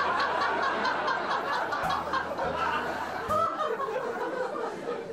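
Several people laughing and snickering together in a quick, choppy run of laughs.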